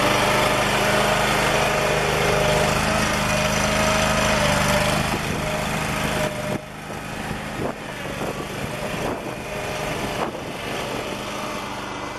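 Toro Dingo TX427 mini skid steer's engine running steadily, then shut off abruptly about halfway through. It is followed by a lower, noisy background with a few scattered knocks.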